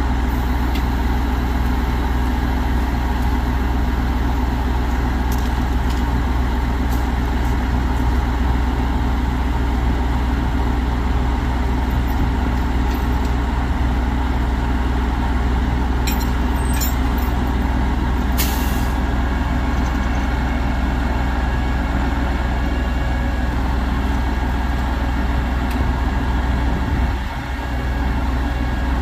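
A 2007 Peterbilt 335's Cummins ISC six-cylinder diesel idling steadily. A few clicks come a little past halfway, followed by a short hiss of air from the truck's air system.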